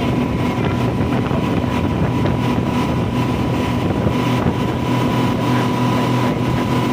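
Speedboat under way at speed, heard from inside its covered cabin: a steady engine drone over the rush of water and wind.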